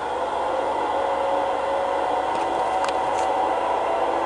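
Lionel Legacy Acela model passenger train running along the track: a steady whirring hum with a few faint clicks, growing slightly louder.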